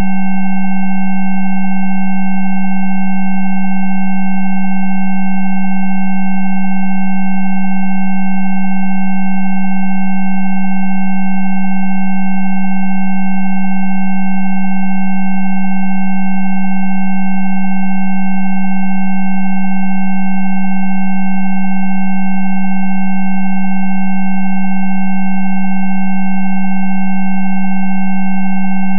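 Steady electronic sine tones of a Rife frequency track: a strong low tone with several fainter, higher tones held together, unchanging and continuous.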